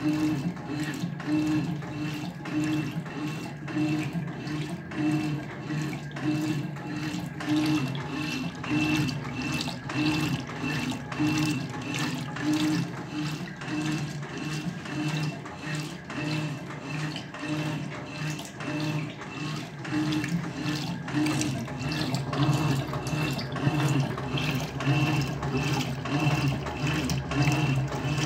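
Electrolux LTC10 top-loading washing machine in its agitation stage: the agitator swishes back and forth through soapy water, the motor hum pulsing a little faster than once a second with each stroke, over steady water sloshing.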